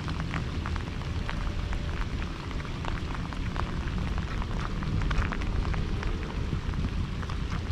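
Steady rain falling, with many small, sharp drop ticks scattered through it.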